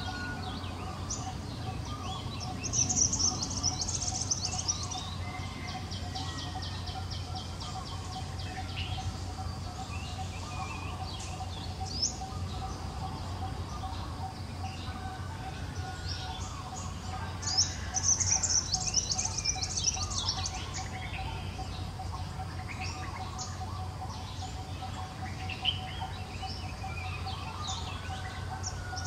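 Birds chirping: two dense bursts of quick high chirps, about three seconds in and again around eighteen seconds, with a run of evenly repeated short calls between them and scattered single chirps, over a steady faint tone.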